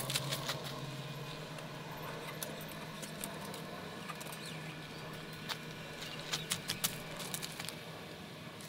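Faint footsteps in sandals on a gravel drive, walking away near the start and coming back from about five seconds in, with a quieter stretch between.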